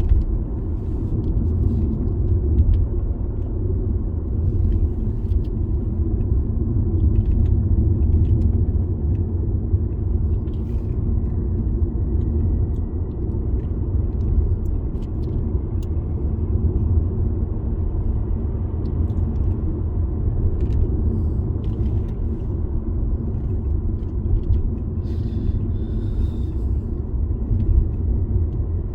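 A car driving at a steady speed: continuous low engine and road rumble, with a few faint ticks.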